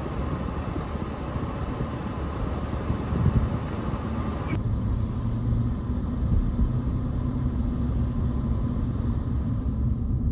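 Converted truck driving on the road: a steady low engine and road rumble. About halfway through, the higher hiss cuts away suddenly while the rumble carries on.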